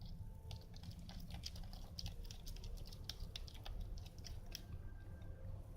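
Sticky slime being stirred with the activator soaking into it: a dense run of small wet clicks and squelches that thins out near the end, over a low steady hum.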